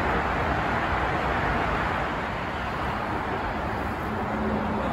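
Steady rushing background noise, with no single event standing out, and a faint hum joining in near the end.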